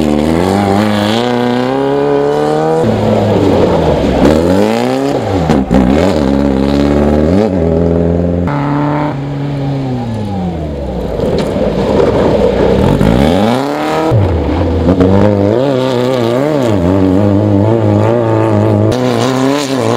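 Off-road race cars and buggies passing at speed on a dirt course, their engines revving hard, with the pitch climbing and dropping as they accelerate and shift, one pass after another.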